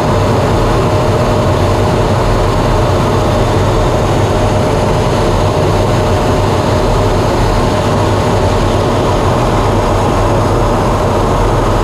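Steady jet engine and airflow noise inside a two-seat jet trainer's cockpit in flight, with a low hum and a thin constant tone.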